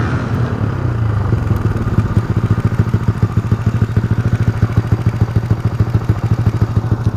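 Motorcycle engine idling with a steady, even pulse.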